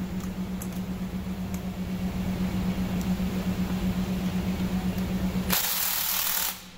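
A steady machine hum with a fast pulse, cut off about five and a half seconds in by roughly a second of loud hissing, after which it goes much quieter.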